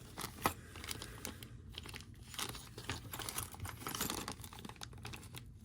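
Plastic packaging of a rotary tool accessory kit being handled: crinkling and rustling with scattered light clicks, one sharper click about half a second in.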